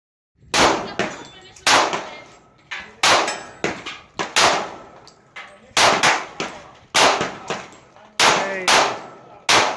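Gunfire on a shooting range: a rapid, uneven string of gunshots, about one or two a second, some loud and sharp and others fainter, each with a short ringing tail.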